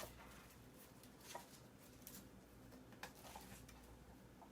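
Near silence with a few faint, scattered clicks and light taps of small hardware being handled while the box is taken apart.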